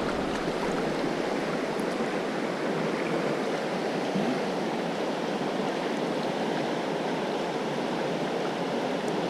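Fast mountain river rushing over rocks in broken riffles, a steady rush of water, the river running high and heavy.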